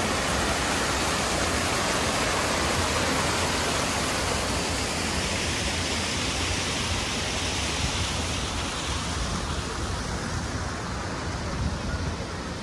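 Small rock cascade waterfall: a steady rush of splashing water that grows duller and fainter over the last few seconds.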